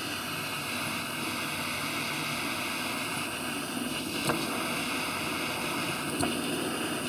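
Hand-held butane jet torch burning with a steady hiss, its blue flame played against a packed snowball. A couple of faint ticks come about four and six seconds in.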